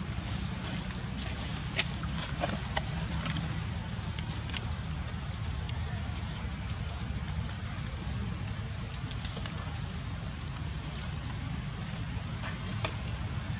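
Short, high-pitched animal chirps and squeaks, scattered and repeated, over a steady low rumble, with a few light clicks near the start.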